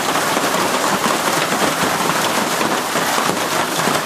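Heavy hail and rain pelting the lawn, paving and garden, a dense, steady patter of countless small hits.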